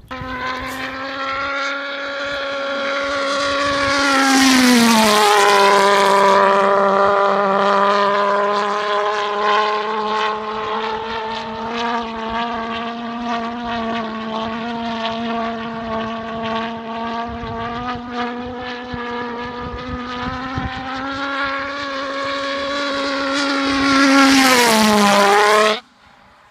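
HobbyKing 'Red Head' pulse jet on a Multiplex Funjet Ultra RC plane in flight, a loud, steady buzzing drone. Twice, about five seconds in and again near the end, it swells and drops in pitch as the plane passes close. It cuts off suddenly near the end.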